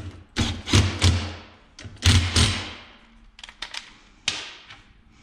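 Cordless power tool run in two short bursts, driving down the bolts of a valve spring compressor on an aluminium cylinder head, followed by a few light clicks of metal tools on the steel bench.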